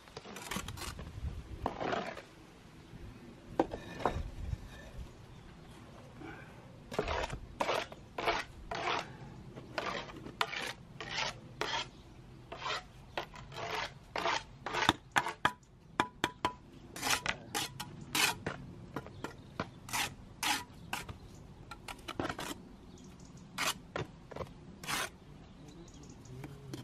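Steel bricklaying trowel scraping mortar and tapping against bricks as they are laid: a long run of short, irregular scrapes and knocks, busier from a few seconds in.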